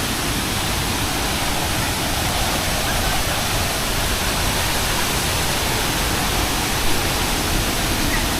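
Waterfall, a steady even rushing of falling water.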